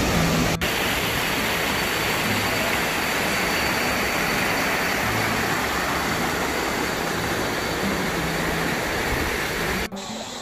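Waterfall: falling water making a steady, even rush that comes in abruptly about half a second in and cuts off suddenly near the end.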